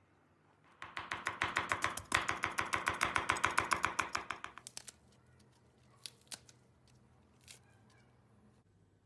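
Knife chopping walnuts rapidly on a cutting board, about eight quick strokes a second for roughly four seconds, then a few single light knocks.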